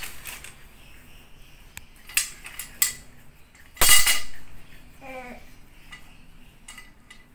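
Handling noises of flat-pack shelf parts and their plastic wrapping on a tiled floor: rustling and a few sharp knocks and clatters, the loudest about four seconds in.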